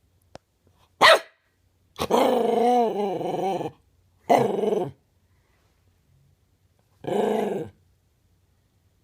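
A dog barking and growling in four separate outbursts: a short sharp bark about a second in, a long wavering growl-bark lasting nearly two seconds, then two shorter barks.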